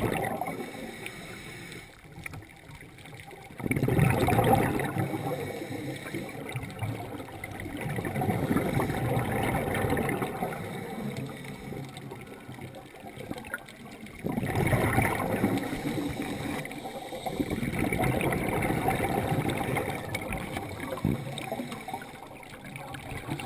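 Scuba regulator breathing heard underwater: bursts of exhaled bubbles gurgling for a second or two every few seconds, with quieter gaps between breaths.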